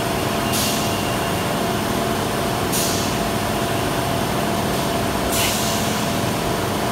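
Steady mechanical hum throughout, with three short, high hisses: about half a second in, near three seconds, and a little past five seconds.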